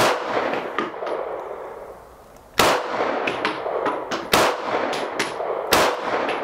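Four single shots from a 9mm Canik sfxRIVAL pistol fired at an unhurried, uneven pace, the first trailing off in a long fading echo. Lighter sharp clicks fall between the shots.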